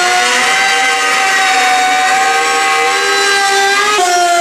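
Corded electric detail sander with a triangular pad running against plywood: a steady, loud motor whine over a sanding hiss. The pitch drops slightly about four seconds in.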